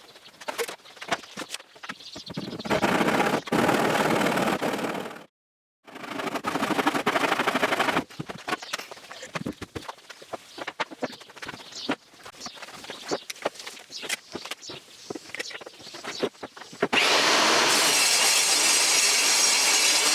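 A power tool working wood runs in two bursts of about two seconds each, with a brief gap between them. Then comes a stretch of light knocks and clicks from handling the work, and the tool runs steadily again over the last few seconds.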